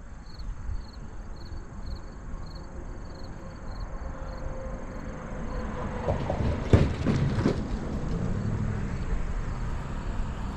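A vehicle passing on the road, its tyre and engine noise building up and peaking about six to seven seconds in with a few knocks, as over a joint in the road. A faint, regular insect chirping fades out after the first few seconds.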